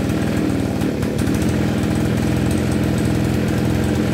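Two-stroke engine of a Shingu KB3220 brush cutter running at a steady speed.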